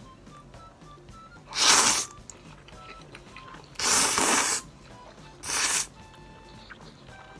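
A person slurping thick abura soba noodles in three loud slurps, the middle one the longest, over quiet background music.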